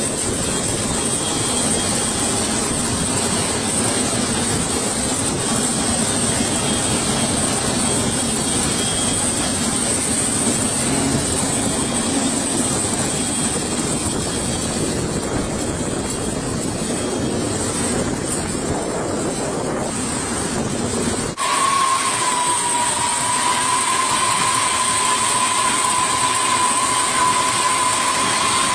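Steady machinery noise of a parked heavy cargo jet with its nose cargo door open. After a cut about 21 seconds in, a steady high whine stands out above the noise.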